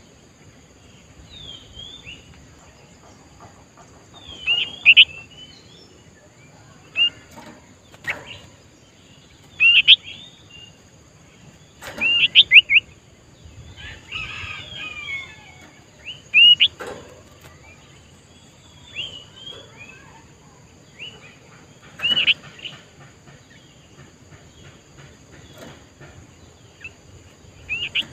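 Sooty-headed bulbul calling in short, loud whistled phrases every few seconds, over a faint steady high-pitched hum.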